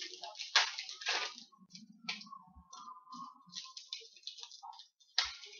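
Trading card packs and cards being handled: crinkling wrapper and rustling card stock in quick, irregular scratchy strokes, with the sharpest crinkles about half a second in and near the end.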